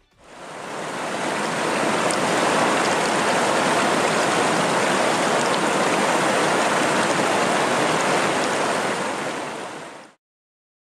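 Shallow, rocky stream running over stones: a steady rush of water that fades in over the first second and cuts off about ten seconds in.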